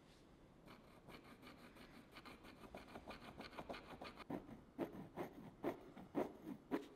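Brush working oil paint onto canvas in quick short scratchy strokes, about five a second. The strokes grow louder, with several harder dabs in the last two seconds.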